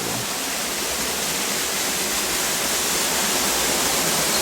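A waterfall in good flow rushing steadily, an even wash of falling water that grows slightly louder.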